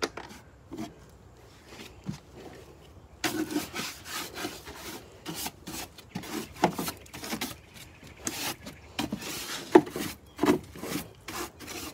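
Irregular scraping and rubbing against wood: a few faint knocks at first, then from about three seconds in a dense run of short, uneven strokes.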